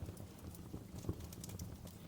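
Wood fire burning in a fireplace: irregular crackles and small pops over a low, steady rumble of flame, with one sharper pop about a second in.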